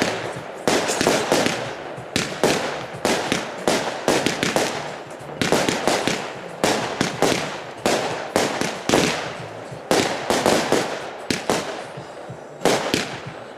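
Consumer firework batteries (cakes) firing, two identical ones lit together: a rapid run of shots and bursting bangs with crackle, coming in bunches about every second.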